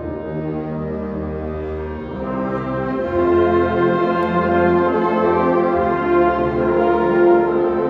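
Concert band of brass and woodwinds playing held chords over slowly changing low bass notes, growing louder about three seconds in.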